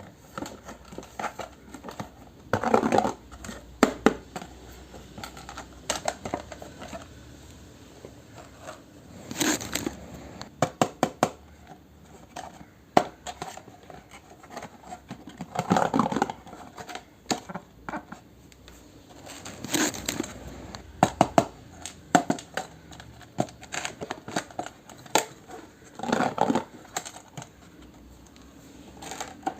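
Plastic packaging crinkling, with small clicks and taps as pieces of a miniature toy kitchen set are handled. The sounds come in irregular bursts a second or two long, separated by short pauses.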